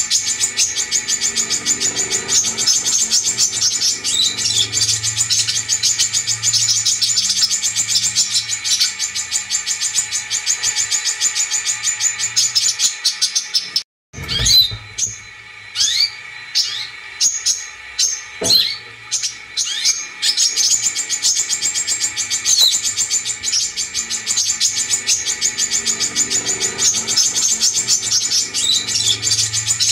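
Bird-lure recording of brown-throated sunbird (kolibri kelapa) song: a dense, rapid, high-pitched chattering trill. About halfway through it breaks off briefly, then gives way to several separate sharp downward-sliding chirps for a few seconds before the trill resumes.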